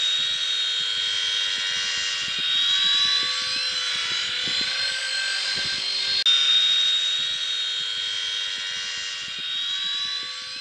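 Small electric motors and rotors of a toy RC helicopter whining steadily in flight, with a high whine that slowly glides in pitch. The sound breaks off abruptly and starts again about six seconds in.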